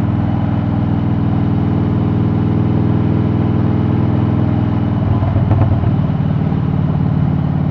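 Harley-Davidson V-twin motorcycle engine running steadily under way at cruising speed, with a low pulsing exhaust note. The note wavers briefly about five seconds in, then settles again.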